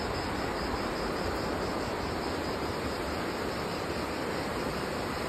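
Steady outdoor rushing noise with a low, fluttering rumble in it.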